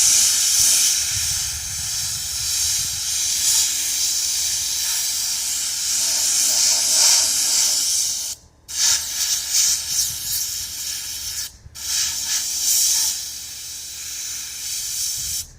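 Central Machinery sandblasting gun blasting abrasive onto a steel tractor wheel center: a loud, steady hiss that stops briefly twice.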